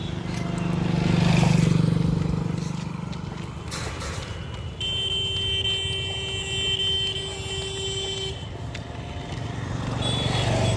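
A motorcycle passing close by, loudest about a second and a half in. A steady horn note then holds for about three and a half seconds from about five seconds in, and another engine grows louder near the end.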